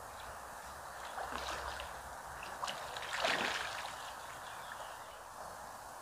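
Flowing river water at the bank, with a few faint clicks and a louder watery rush a little over three seconds in.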